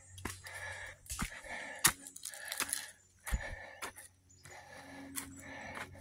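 A hiker's heavy breathing while climbing a steep trail, in puffs about once a second, mixed with sharp crunches and clicks of footsteps on dry leaves, twigs and dirt.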